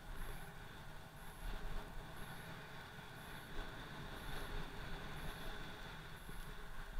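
Wind rushing over an action camera's microphone during fast snowkiting, with a steady hiss of riding across snow.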